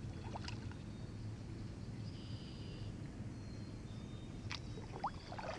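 Faint bird calls, one a high whistled note held briefly about two seconds in and a shorter one later, over a steady low outdoor rumble on the river.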